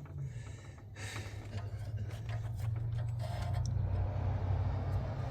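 A steady low hum with scattered light clicks and knocks, such as metal parts being handled.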